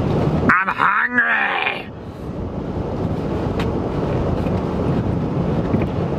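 A man lets out a loud, drawn-out wail, its pitch sliding up and down, about half a second in and lasting about a second and a half. The rest is the steady rush of the car's air-conditioning fan.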